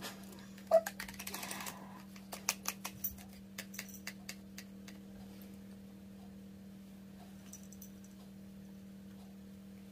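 Light plastic clicks and a brief rustle as a small bottle of catnip bubbles is opened and its plastic wand is drawn out, over a steady low electrical hum. One sharp click comes about a second in, and a quicker run of clicks follows over the next couple of seconds before it goes still.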